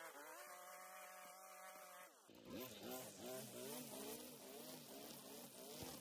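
String trimmer running at a steady pitch; about two seconds in its pitch drops, then rises and falls over and over.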